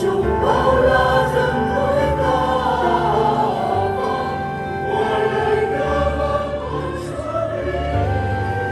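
Choir singing sacred music over a sustained instrumental accompaniment with held bass notes.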